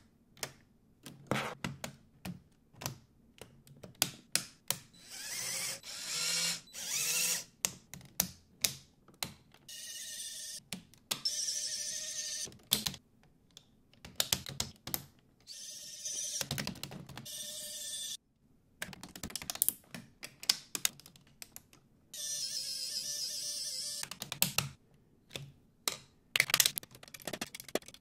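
Lego Technic pieces being pressed and snapped together during assembly, in many short, sharp clicks and snaps. A few stretches of a steady hum lasting a second or two are mixed in.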